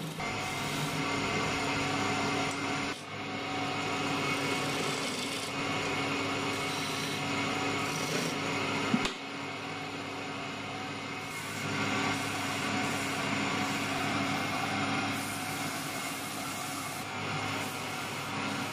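Wood lathe running while a cutting tool shaves a spinning wooden chair-leg blank, a steady scraping over the motor's hum. A single sharp click comes about nine seconds in.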